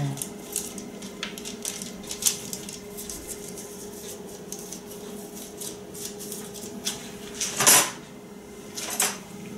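Light clatter of a metal baking tray being shifted and handled on a kitchen counter, with scattered knocks and clicks and a louder knock near the end, over a faint steady hum.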